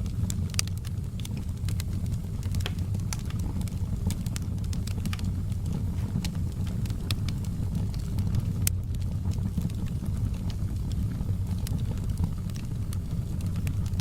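Wood fire crackling in a fireplace: a steady low rumble of the burning fire with frequent irregular sharp pops and snaps.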